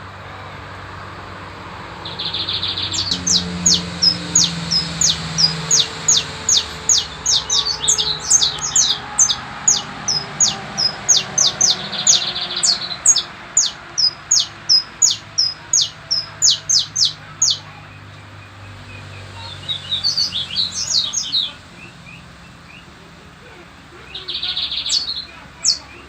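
Saffron finch (canário-da-terra) singing: a long phrase of sharp, high notes repeated about two a second, opening with a short buzzy note. After a pause it sings two shorter phrases.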